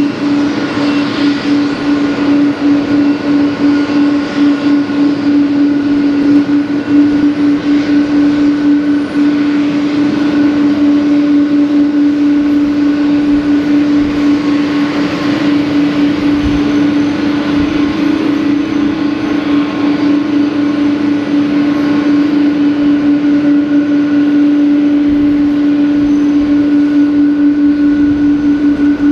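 A loud, steady mechanical drone: one low hum with a fast flutter in it, a few fainter steady tones above, and an even haze of noise underneath.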